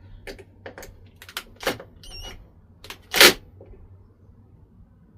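A run of sharp knocks and clatters from parts of a wheel-balancing stand being handled and fitted on a workbench, with a brief metallic ring about two seconds in. The loudest knock comes a little after three seconds.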